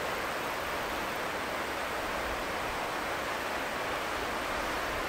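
Boeing 737-700's CFM56 jet engines idling as the airliner taxis, heard at a distance as a steady, even rushing noise.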